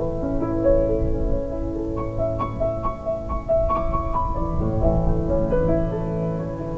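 Background piano music: a slow run of single notes over a held low bass note.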